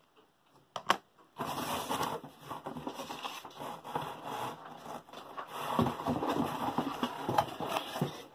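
Cardboard box and packing being handled: a couple of sharp clicks, then from about a second and a half in, continuous rustling and scraping of cardboard as a parcel is opened and a boxed kit is pulled out.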